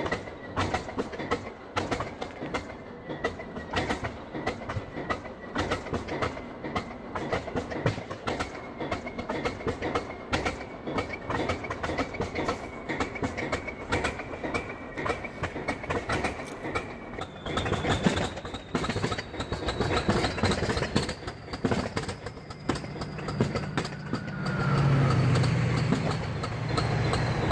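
Several British Rail Class 20 diesel-electric locomotives running, their English Electric diesel engines making a rough, clattering note with a faint whistle that slowly rises in pitch. The engine sound grows louder about 17 seconds in, and a heavier low rumble builds near the end.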